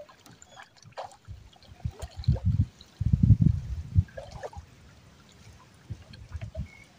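Water splashing and trickling in the shallows, with a run of heavy splashes between about two and four seconds in.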